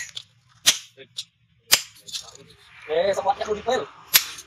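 Hammer blows on leaf-spring steel on the anvil: four sharp ringing strikes spaced unevenly, with lighter taps between.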